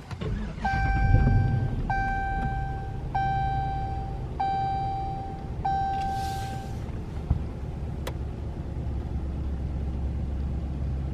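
Dodge Challenger R/T's HEMI V8 starting under a second in and settling to a steady idle, while a dashboard warning chime rings five times, about once a second. The engine starting is the sign that the newly installed push-to-start button works.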